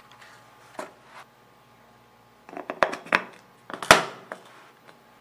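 Clear plastic lid being fitted onto a small blender bowl: a cluster of plastic knocks and clicks in the second half, the loudest a sharp snap as it seats.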